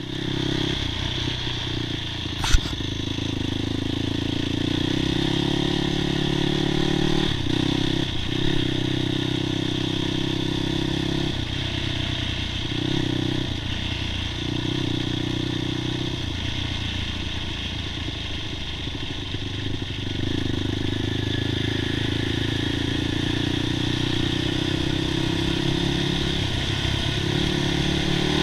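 Quad (ATV) engine running under throttle, its pitch dipping and rising several times as the rider changes throttle and gears. A single sharp knock about two and a half seconds in.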